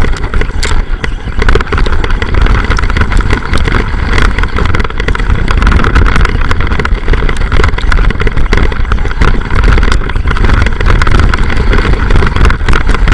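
Arrma Boost Vorteks RC car driving off-road, heard close up: a loud continuous rumble with frequent knocks and rattles from bumps.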